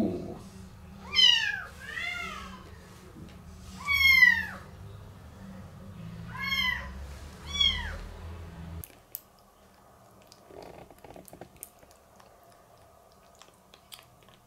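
A 15-day-old calico kitten mewing: five short, high-pitched cries in the first nine seconds, each rising then falling in pitch, over a low steady hum. The hum stops abruptly about nine seconds in, leaving only faint small clicks.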